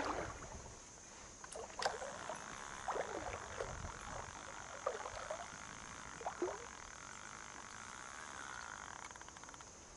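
Mountain stream running steadily, with a handful of short, sharp sounds over it between about two and six and a half seconds in.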